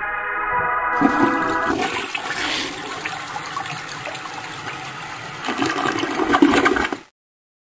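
A toilet flushing: a rush of water that swells again near the end and cuts off suddenly about seven seconds in. Electronic music stops about two seconds in.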